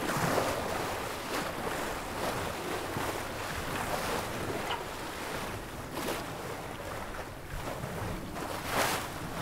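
Water washing along the bow of a Norfolk wherry under way, with wind gusting on the microphone. The wind swells louder a few times, most strongly near the end.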